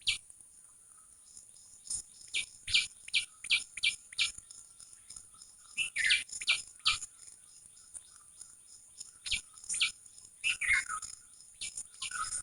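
Wild birds chirping: short, sharp calls that drop in pitch, coming in irregular clusters of a few at a time.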